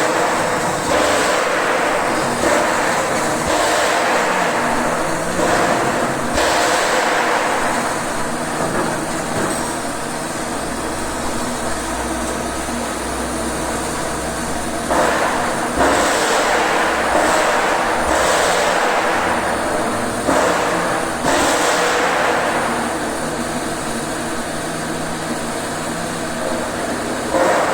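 TIG welding arc running at about 120 amps, a steady loud hiss that swells and eases every second or two.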